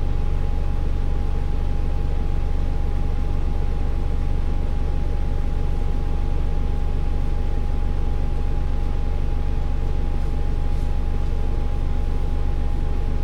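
Nissan Diesel Space Runner bus's PF6HT straight-six diesel engine running at a steady, unchanging speed: a low drone with a thin steady whine above it.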